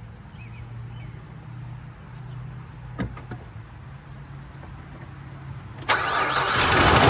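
2003 Nissan Xterra's 3.3-litre V6 starting on its newly replaced distributor: a quiet low hum and a single click, then near the end the engine catches suddenly and runs loudly.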